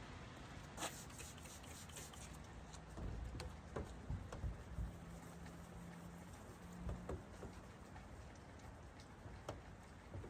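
Faint rubbing and handling noises with scattered light clicks and ticks, as a clay bar is worked over old, thin car paint.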